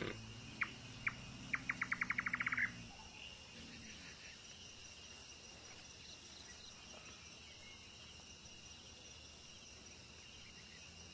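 A series of sharp chirps: three spaced ones, then a fast run of about a dozen that speeds up and stops about three seconds in. Under it is a steady, faint, high-pitched night insect chorus.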